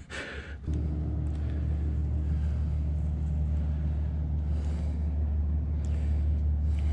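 A motor running steadily with a low, even hum. It starts about a second in and cuts off suddenly at the end.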